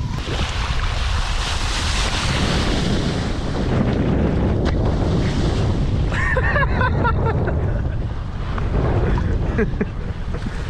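Strong wind buffeting the microphone over rushing, splashing water at the surface. A brief distant voice-like call about six to seven seconds in.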